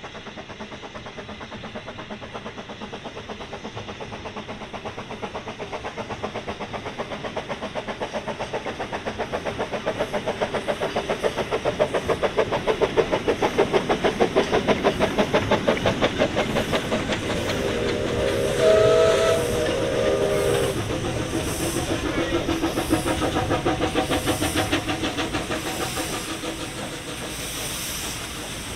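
Ffestiniog Railway George England saddle-tank locomotive No 2 Prince hauling a narrow-gauge train past, with rapid rhythmic beats that grow louder to a peak about halfway through as it passes. A steam whistle sounds for about two seconds just past the middle. Near the end, a second steam locomotive hisses steam from its cylinders.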